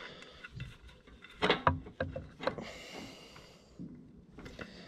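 Handling noise from a rubber breather hose being worked and pulled through the air cleaner backing plate: rubbing with scattered clicks and knocks, the loudest cluster about a second and a half in, and a short hiss around three seconds.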